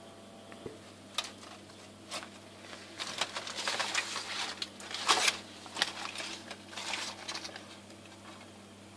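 Aluminium foil and plastic wrapping crinkling and rustling as they are handled and unwrapped, in an uneven string of crackly bursts, loudest about five seconds in.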